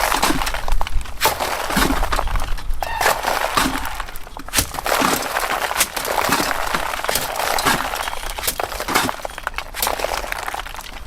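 Bucket trowel scooping gritty wet-dash render mix and throwing it at the wall: continuous gritty scraping broken by many sharp clicks and knocks.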